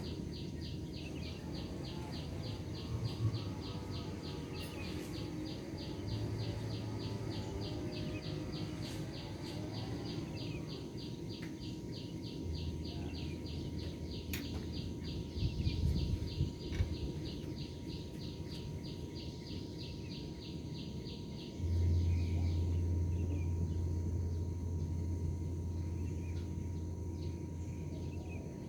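High, rhythmic chirping at about three to four pulses a second, which fades out about two-thirds of the way through, with warbling animal calls in the first third. A low hum runs underneath and gets clearly louder near the end.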